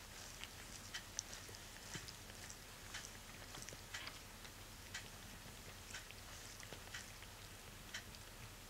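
A cat licking its paw and fur while grooming: faint, irregular wet clicks and smacks, about one or two a second, over a low steady hum.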